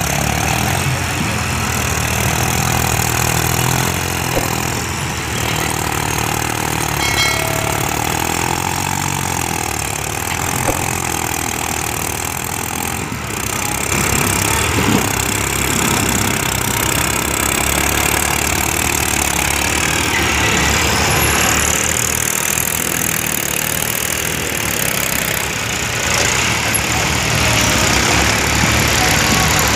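New Holland 3630 tractors' three-cylinder diesel engines running steadily under load as they pull land-levelling blades through loose soil. The sound gets louder about halfway through as a tractor passes close by.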